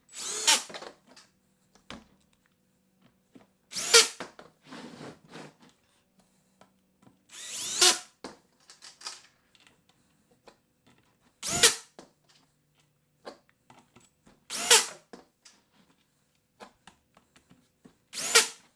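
Power drill on its lowest setting driving screws into the kayak crate's panels, six short runs about three and a half seconds apart, each ending sharply as the screw seats.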